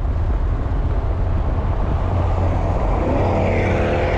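Motor vehicle engine running with a heavy low rumble; about three seconds in, a higher engine tone rises and then holds steady.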